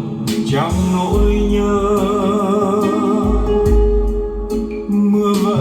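A Vietnamese ballad playing through Altec Lansing Valencia 846B loudspeakers fitted with dual subwoofers and super tweeters. A singer holds a long note with vibrato over deep bass notes and accompaniment.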